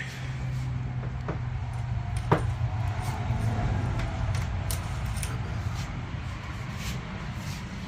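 Light clicks and ticks of hand-handled parts, with one sharp knock about two seconds in, over a steady low hum.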